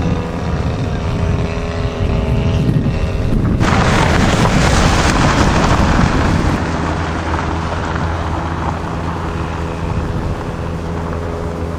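A radio-controlled model aeroplane's small engine buzzes steadily in flight. About three and a half seconds in it cuts abruptly to a loud rush of wind on the microphone, which eases into a steady low engine-like hum.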